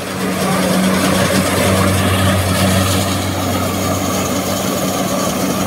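Kubota DC60 combine harvester's diesel engine running at a steady pace, a low even drone as the tracked machine pulls away across the muddy rice field.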